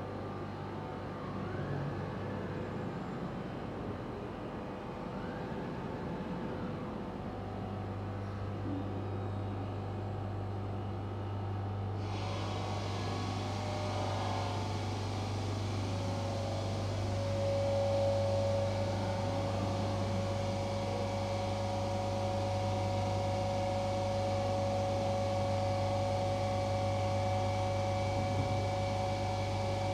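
Motors and axis drives of a five-axis CNC stone bridge saw running as its head moves into position: whines that rise and fall, then a steady hum from about seven seconds in. A hiss joins about twelve seconds in and a higher steady tone a few seconds later.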